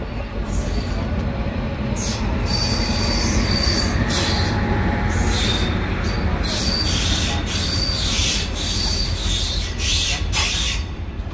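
Shalimar Express passenger coaches running, heard from an open coach doorway: a steady rumble of wheels on the track, with a high-pitched metallic wheel squeal that comes and goes from about two seconds in.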